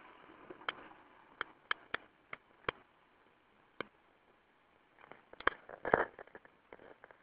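Handling noise from a handheld camera: sharp, separate clicks and taps, then a denser run of louder knocks about five to six seconds in as the camera is swung around.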